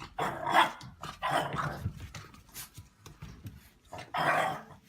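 Dog barking several times in separate bursts, with the loudest barks near the start and again about four seconds in.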